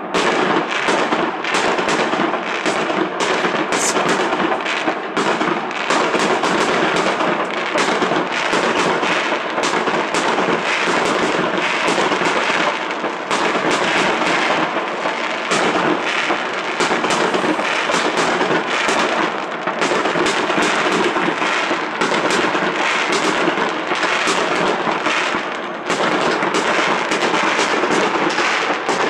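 Aerial fireworks bursting in a dense, unbroken barrage: many sharp bangs following one another closely.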